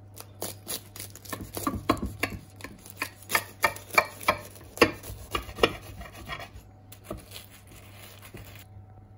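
Knife cutting through a baked puff pastry pie lid: the flaky crust crackles and crunches in a quick run of sharp snaps, loudest a few seconds in, then thinning out.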